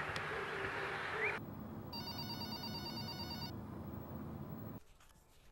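Outdoor ambience with a few bird chirps, cut off after about a second by office room tone in which a telephone rings with a warbling electronic trill for about a second and a half.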